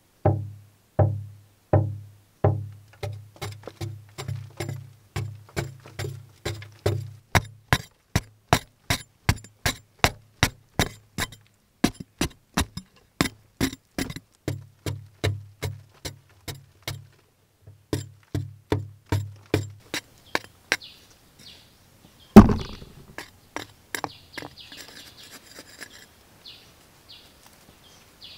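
Background music with a steady percussive beat and a deep pulse, stopping about 20 s in. About 22 s in there is one loud thunk of a digging tool striking earth, followed by faint bird chirps.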